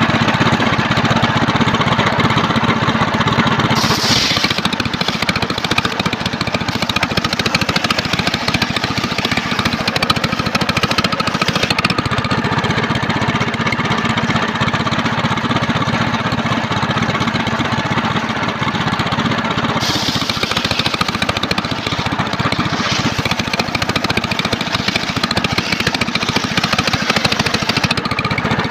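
Engine-driven home-built circular sawmill running under steady power while sawing trembesi timber. A higher-pitched hiss comes in briefly about four seconds in and again for most of the last third.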